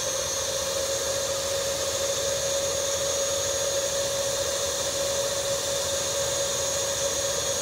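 Oase PondoVac Classic pond vacuum running steadily while sucking water and debris off the pond bottom. Its motor gives a constant hum with a thin high whine above it.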